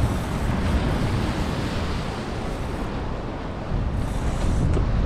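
Wind buffeting the microphone in gusts, over the wash of surf breaking on the rock ledge.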